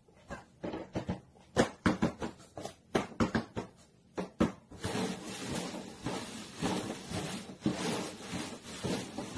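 Paper cups being tapped down and slid over the top of a cardboard box as they are shuffled: a quick run of sharp taps, then, about halfway through, a continuous scraping rustle that swells and fades as the cups are pushed around.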